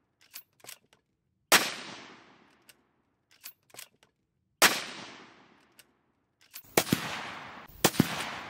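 Two shots from a CZ 527 bolt-action carbine in .223 Remington, about three seconds apart. Each is a sharp crack with a long echo dying away, and light clicks of the bolt being worked come between them. Near the end there is a quick run of sharp cracks over a rushing noise.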